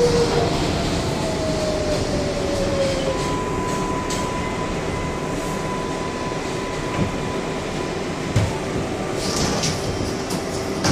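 R142A subway car braking into a station: rumble of the wheels on the rails with an electric whine from the propulsion that slides down in pitch, then a steady higher tone as the train slows to a stop.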